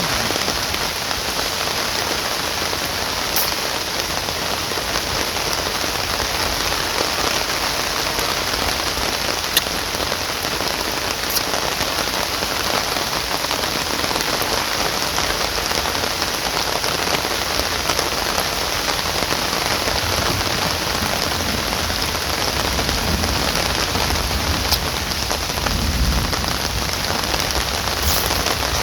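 Steady heavy rain falling, with a few sharper single drop strikes standing out now and then.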